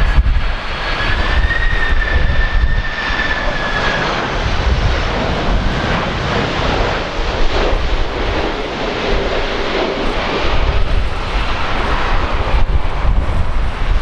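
Jet airliner passing low overhead on its landing approach, with a steady high engine whine that fades after about four seconds while the broad jet rush carries on, then dies away near the end. Gusty wind buffets the microphone throughout.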